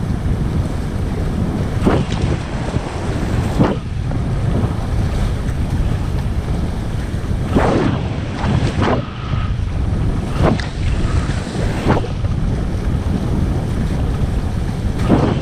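Wind buffeting the microphone over water rushing past the hulls of a Supercat 17 catamaran sailing fast upwind. Several short splashes of waves and spray striking the hulls come through the steady rush.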